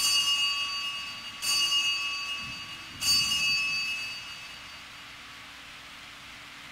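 Altar bell struck three times about a second and a half apart, each strike ringing on and fading: the consecration bell marking the elevation of the consecrated host at Mass.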